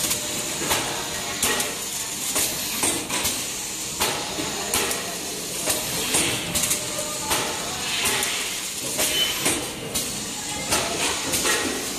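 GZP-150 servo flow-wrap packing machine running, a steady mechanical hiss broken by repeated clacks from its mechanism about once or twice a second.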